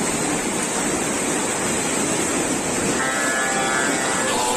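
Floodwater rushing fast along a street, a steady rushing noise. About three seconds in, a few steady tones come in over it.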